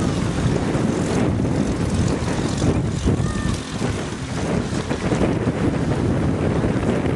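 Wind buffeting the microphone on a small kayak-catamaran under way, a steady rumbling rush of noise.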